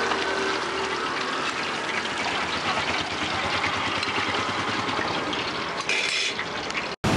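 Marinated fish pieces deep-frying in a wide wok of hot oil: a steady sizzle. The sound cuts off suddenly just before the end.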